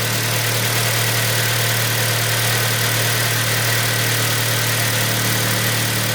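Kia Sportage 3's freshly rebuilt G4KD 2.0-litre four-cylinder petrol engine idling steadily on its first run after a full overhaul.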